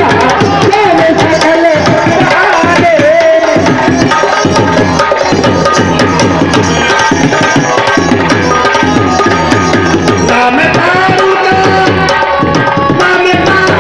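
Live stage-show music: hand drums playing a fast, steady rhythm under a held melody line that wavers in the first few seconds.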